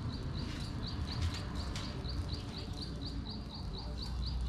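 An animal chirping: one short high chirp repeated evenly, about four times a second, over a low rumble.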